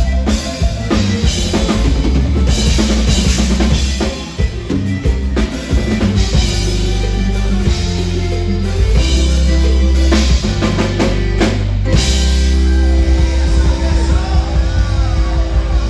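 Live conjunto band playing an instrumental passage: button accordion lead over a bajo sexto, electric bass and drum kit, with a steady beat and a heavy bass line.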